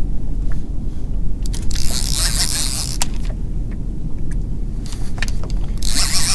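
Multiplier reel on a bent boat rod being cranked under the load of a heavy fish, with uneven clicking and two long hissy spells, about a second and a half in and near the end. Underneath is a steady low rumble of wind on the microphone.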